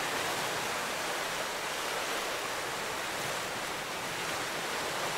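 Ocean surf: a steady wash of breaking waves, an even hiss with little rise and fall.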